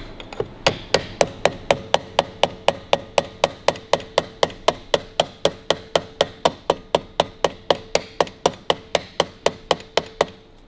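A small hammer tapping a punch in a steady rhythm of about four taps a second, rolling the thin steel bezel lip of a 1941 Harley-Davidson WL speedometer over its glass against a steel bar held in a vise. A faint steady ringing tone hangs under the taps.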